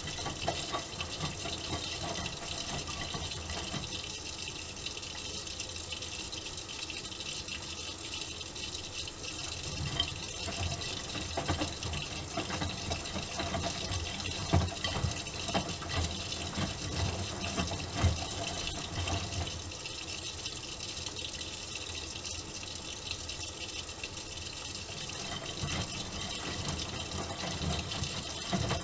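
Miele Softtronic W3923 front-loading washing machine mid-cycle: water runs into the drum with a steady hiss while the drum turns, and low sloshing thumps come and go, strongest around the middle.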